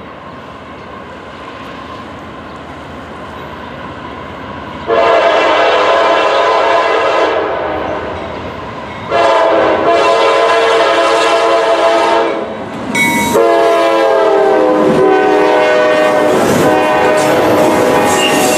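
Norfolk Southern GE Dash 9-44CW locomotives approach a grade crossing, their rumble slowly growing. Then the locomotive horn sounds three long chords of about three seconds each, the last held on as the locomotives pass, with wheels clattering over the rails.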